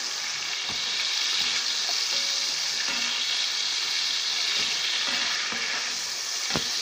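Pieces of testicle meat sizzling in hot oil in a frying pan while being stirred with a spatula: a steady frying hiss with light scrapes and ticks of the spatula, and one sharp knock on the pan near the end.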